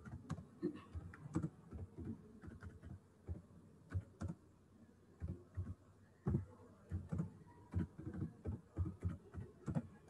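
Typing on a computer keyboard: uneven keystrokes, a few a second, with a couple of short pauses.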